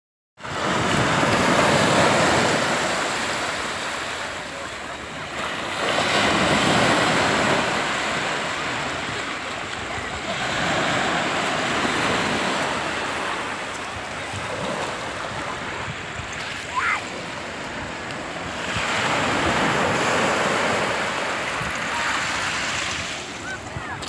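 Small North Sea waves washing in and out over a thick bed of cockle and razor shells, the water and shells swelling and easing every few seconds. A short high chirp sounds about two-thirds of the way through.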